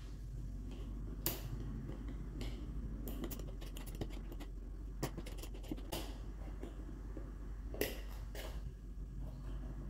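Scattered light metallic clicks and taps of an RTI Prophet 2 air rifle's parts being handled as a rod is turned and pulled out of the action to free the valve block.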